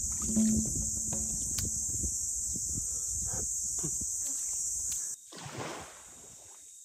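A steady high cicada buzz over sloshing water and light clinks, as dishes are washed by hand. It all cuts off abruptly about five seconds in, followed by a short whoosh.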